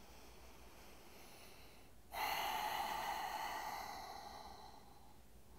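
A man's long, audible breath during a held seated forward fold. It starts suddenly about two seconds in and fades away over about three seconds.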